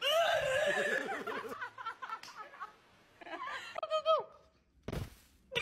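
A person laughing in a high voice in quick bursts, then a few more short high vocal sounds. A single dull thump comes near the end.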